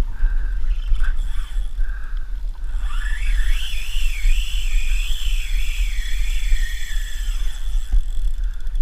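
Spinning reel's drag whining as a hooked fish pulls line off. The pitch wavers up and down with the speed of the run, starting about three seconds in and fading near the end. Under it, a steady low rumble of wind and water on the microphone.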